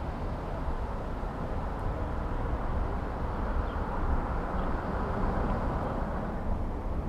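Steady ride noise while cycling along a city street: a deep wind rumble on the microphone with tyre and street traffic noise, swelling a little in the middle.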